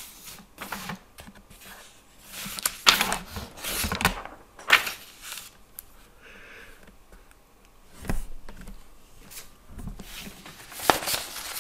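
Scattered clicks, knocks and rustles of things being handled at a desk, irregular and bunched into a few busier spells.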